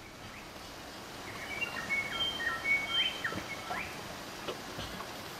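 Birds singing: a run of clear whistled notes, some held level and some sweeping upward, over a steady outdoor hiss.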